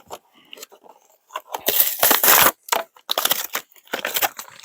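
Plastic toy packaging crinkling and crackling as it is torn open and handled, in a few loud bursts, the loudest about halfway through.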